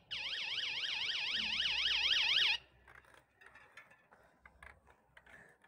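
Electronic siren warbling rapidly up and down in a fast yelp. It cuts off abruptly about two and a half seconds in, leaving near silence with a few faint clicks.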